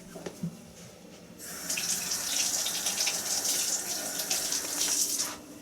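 Running water, a steady rushing stream that starts about a second and a half in and stops near the end.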